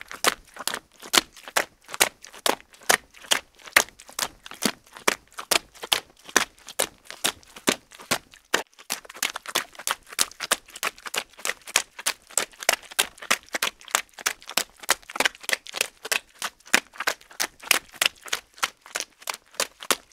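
Footsteps running through mud: a quick, even rhythm of sharp steps, about three to four a second.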